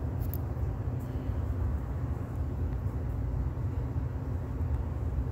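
Steady low background rumble with a faint even hiss, and no distinct event.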